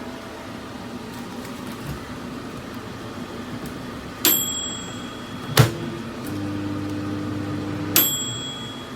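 COMFEE' 700W mini microwave oven running with a steady hum. About four seconds in it gives a short electronic beep; a sharp click follows a second later and the hum turns into a steadier, louder drone. A second identical beep comes near the end.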